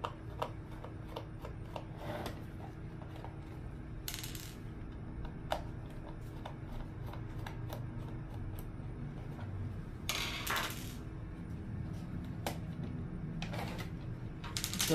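Screws being undone from a speaker's casing: scattered small clicks, with a few brief rattles of loose parts.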